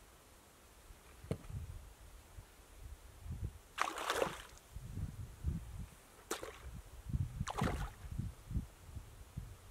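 A hooked fish splashing at the lake surface as it is played in on a fishing rod: three sharp splashes, the longest about four seconds in, then two shorter ones around six and a half and seven and a half seconds, over intermittent low rumbling.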